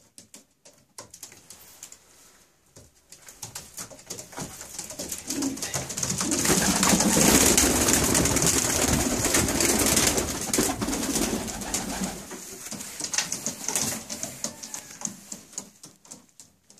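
Pigeons flapping their wings in a small room as one is caught by hand: a rapid clatter of wingbeats that builds, is loudest in the middle, and dies down near the end.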